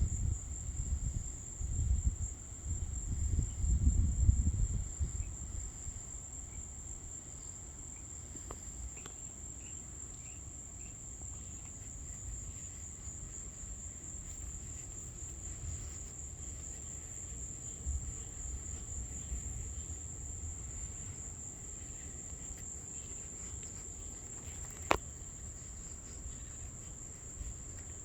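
Steady high-pitched insect chorus, an unbroken trill. A low rumble runs through the first few seconds, and there is a single sharp click near the end.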